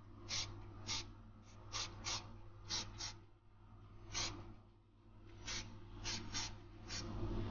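Aerosol can of car spray paint hissing in about a dozen short, quick bursts, each press released almost at once, with a brief pause a little past the middle.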